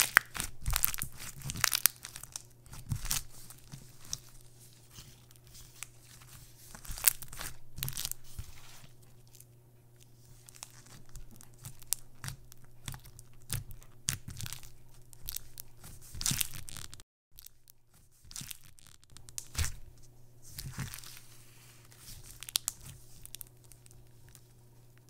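Hands squeezing, stretching and pressing a sticky purple slime, giving irregular crackles and sharp wet clicks, with a steady low hum underneath.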